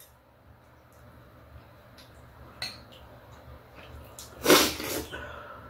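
Quiet eating at a table: a light click of a utensil, then one short, loud, breathy noise from one of the diners about four and a half seconds in.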